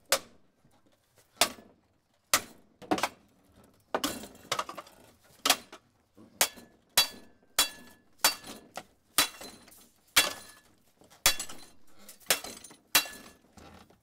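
Damaged ceiling fan spinning off balance, giving a series of sharp clinks and knocks about once a second, unevenly spaced, some with a brief ringing.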